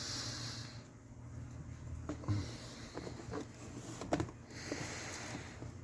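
Light rustling of packaging, with a few soft clicks and knocks, as things are handled and moved about in a box.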